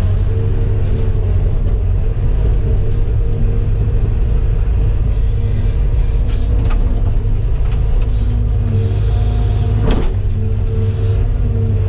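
Heavy-equipment diesel engine running steadily with a low rumble, with a few short knocks and scrapes; the loudest knock comes about ten seconds in.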